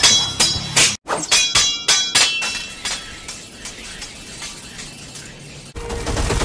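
A rapid flurry of sword strikes, metal clashing and ringing sharply, with a brief cut to silence about a second in. The strikes die away into a low hiss, and near the end a low steady rumble with a held tone comes in.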